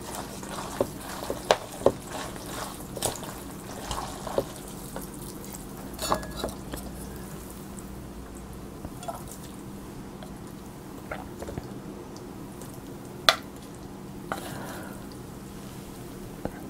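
Chopsticks mixing sauce-coated yeolmu bibim-guksu noodles in a stainless steel bowl: wet stirring and squelching, with sharp clicks of the chopsticks against the metal. The clicks come thick and fast over the first six seconds, then sparser, with one loud click about thirteen seconds in.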